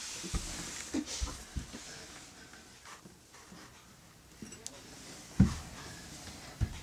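Several dull thumps and knocks, the loudest about five and a half seconds in, over a faint breathy hiss.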